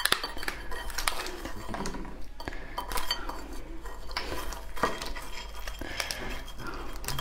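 A crab's shell and legs being pulled apart by hand, giving a series of sharp cracks and clicks, with shell pieces knocking against a ceramic plate.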